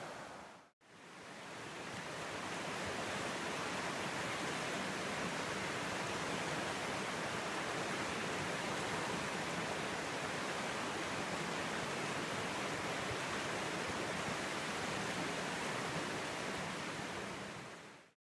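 Rushing river water running over rocks, a steady even hiss. It cuts out briefly just under a second in, swells back up, and fades away near the end.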